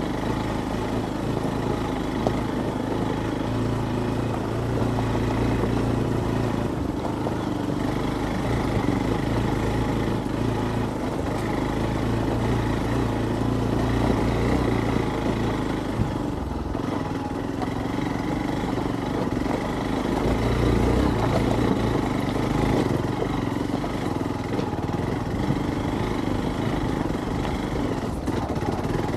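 Hero Xpulse 200's single-cylinder four-stroke engine running at low revs that rise and fall a little as the motorcycle is ridden over a very rocky track, under a steady haze of ride noise.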